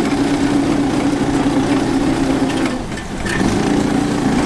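Off-road go-kart's small engine running under throttle with a steady drone; about three seconds in the note eases off briefly, then picks up again.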